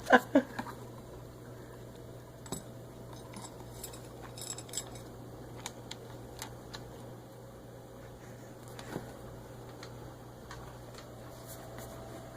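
A pet's plastic cone and food bowl knocking and clinking together in scattered light clicks as it tries to eat while wearing the cone. A short, loud, wavering sound comes right at the start.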